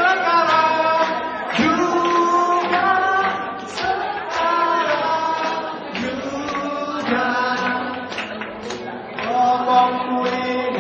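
Singing with music: long, held sung notes that change pitch about once a second.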